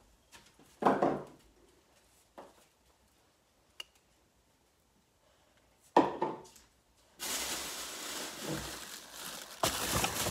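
A few scattered knocks and thuds with quiet gaps between them. Then, from about seven seconds in, a plastic bag rustles and crinkles, louder near the end.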